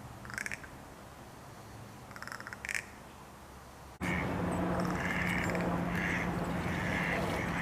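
Crow giving its clacking rattle call: short bursts of rapid clicks, twice in the first few seconds. After a sudden cut about halfway, louder rattles repeat roughly twice a second over a steady low hum.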